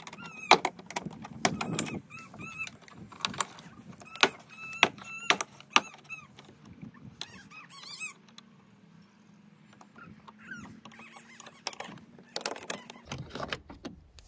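A Ford Ranger's plastic door trim being pried and handled: a run of sharp clicks and knocks with short squeaks, busiest in the first six seconds and again near the end.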